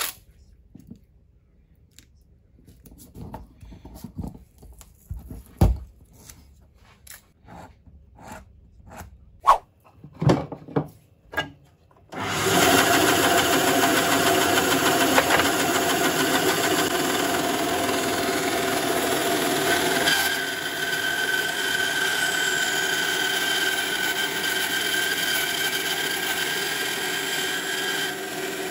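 Scattered light clicks and taps of things being handled on a workbench, then a benchtop bandsaw switched on about 12 seconds in and running steadily. It cuts a block of maple wood and epoxy resin, and its note changes a little partway through.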